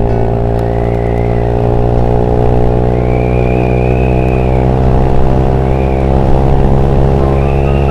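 Honda Beat 110cc single-cylinder scooter engine, ported and fitted with a BRT S4 camshaft, pulling hard at steady high revs while the scooter accelerates. Faint higher whining tones rise and fall a few times over it.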